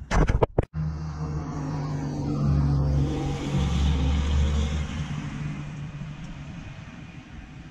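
Sharp knocks and clatter in the first second, then a car passing by: a low engine drone that swells for a few seconds and fades away.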